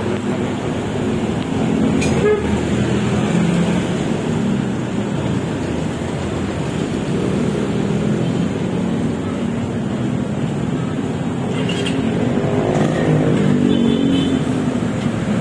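Steady road-traffic noise from passing vehicles. Near the end one vehicle's engine passes, its pitch rising and then falling.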